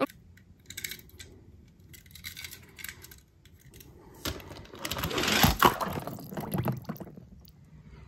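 Light clicks and taps of a die-cast metal toy car handled on a white plastic toy track, with a louder rushing clatter and a sharp knock about five seconds in.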